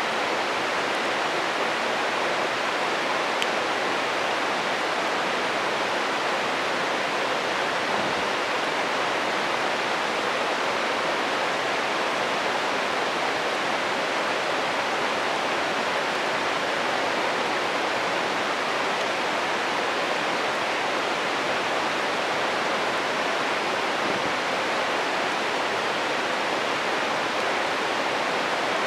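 A stream flowing, its water rushing steadily, with one faint snap from the campfire about three seconds in.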